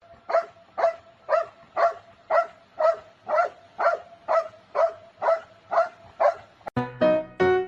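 A dog barking in a steady rhythm, about two short barks a second, thirteen in all. Piano music starts near the end.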